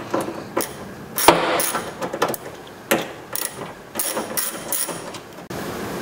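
Ratchet with a Phillips bit loosening tight screws in the end of a car door: a series of irregular sharp clicks and knocks, about two a second.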